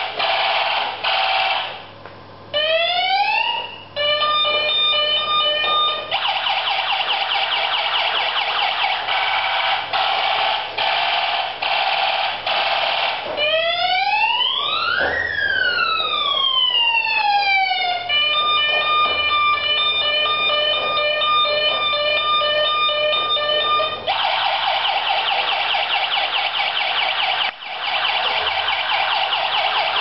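Toy fire engine's electronic siren: fast warbling stretches, rising sweeps a few seconds in, and wails that rise and fall about halfway through, with stretches of held steady tones in between.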